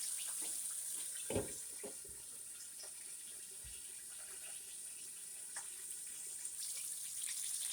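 Flour-coated chicken drumsticks frying in hot oil: a steady sizzle with small scattered pops, and one soft knock about a second and a half in.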